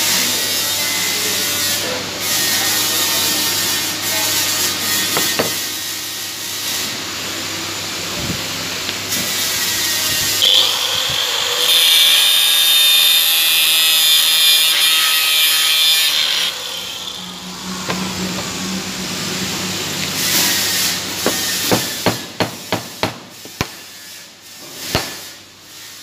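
TIG welding arc hissing steadily on stainless steel for the first several seconds. About ten seconds in, a harsher scraping noise with a steady high whine runs for several seconds. Near the end comes a quick run of sharp metal taps.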